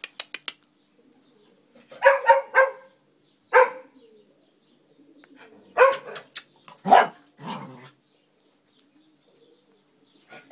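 A dog barking in short bursts, several quick barks at a time with pauses between, after a few sharp clicks at the very start.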